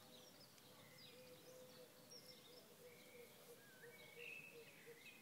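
Faint outdoor ambience with small birds chirping now and then, short high chirps and glides, over a faint steady hum.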